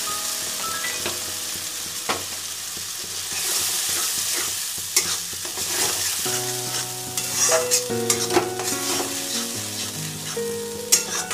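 Spice paste sizzling in hot oil in a metal kadai, being stirred and scraped with a flat metal spatula, with scattered sharp clicks of the spatula against the pan. The paste is being fried down (kosha).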